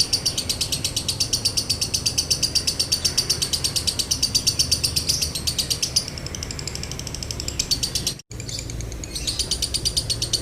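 Lovebird chattering in a long, fast trill of high chirps, about a dozen a second (the 'ngekek' of a lovebird recording). About six seconds in it turns quieter and more varied, cuts out briefly a little after eight seconds, then the fast chatter resumes.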